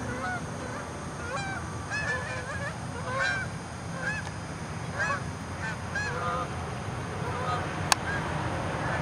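Flock of Canada geese honking in flight overhead: many short overlapping honks, coming thickly at first and thinning out near the end, over a steady low rumble. A single sharp click about eight seconds in.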